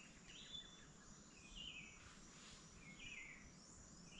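Faint bird song: a short, stepped high-pitched phrase repeated three times, about a second and a half apart, over quiet natural background.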